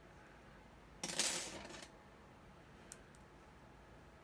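A small thin metal cutting die clatters down once about a second in, a sudden jangle that dies away within a second. Two faint clicks follow about two seconds later.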